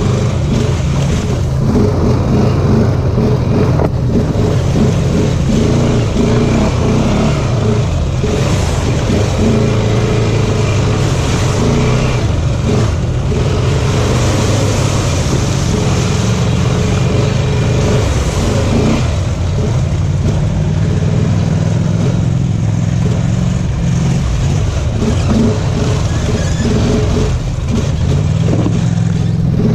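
Off-road vehicle engine running steadily under load, its pitch shifting a little with the throttle, over a constant rumble and rattle from the ride.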